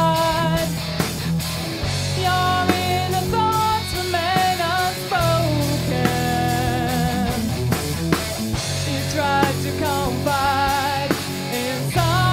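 Rock band music: a wavering lead melody with vibrato over guitar, bass and drums.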